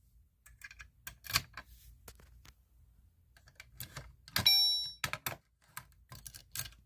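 Irregular small clicks and knocks of hardware being handled, with one short high-pitched electronic beep about four and a half seconds in.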